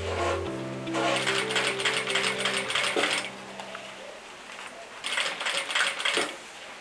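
Sewing machine stitching bias binding onto fabric in two short runs, a longer one in the first half and a brief one near the end, with a pause between them while the work is turned at a curve.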